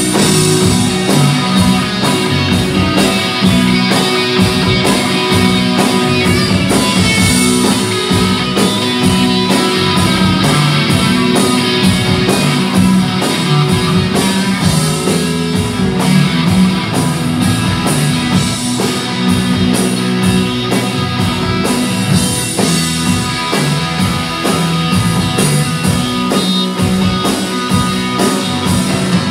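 Live rock band playing: electric guitars, electric bass and a drum kit, with a keyboard on stage, in a steady, loud full-band passage.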